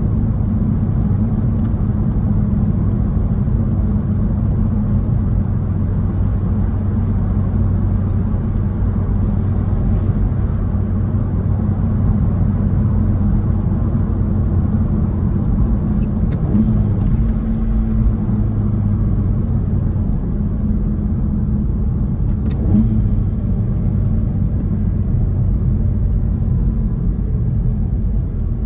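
Inside the cabin of a 2018 VW GTI, its turbocharged four-cylinder engine, fitted with an aftermarket intake and turbo muffler delete, runs at a steady cruise with road noise, its drone shifting pitch slightly a couple of times past the middle. A few faint clicks are heard along the way.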